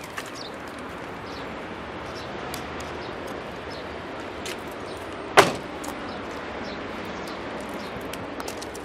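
2013 FAW V5's driver's door shut with one solid thump about five seconds in, over steady outdoor background noise.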